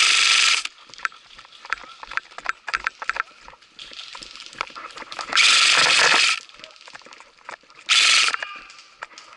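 Airsoft electric rifle, a VFC MK18-style replica, firing three full-auto bursts: the first is already under way and ends just under a second in, the second lasts about a second, and a short one comes near the end. Each is a loud dense mechanical rattle. Between the bursts, short snaps and crunches of footsteps and twigs on the forest floor.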